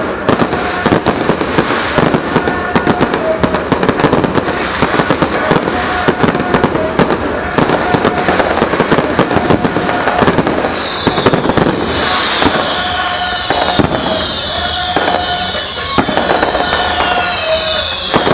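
Aerial fireworks display: a dense, continuous crackle and banging of bursting shells and firecrackers. From about halfway, a run of falling whistles repeats over the bangs.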